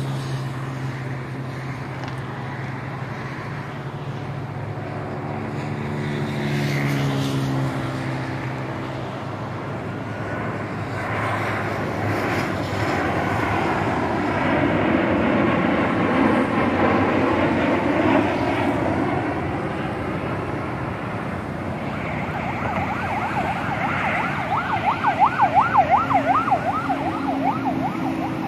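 Boeing 737 airliner on final approach passing low overhead: the rushing noise of its jet engines builds to a peak about halfway through and then fades. A steady low engine hum is heard in the first third, and near the end a fast warbling siren-like tone rises over everything.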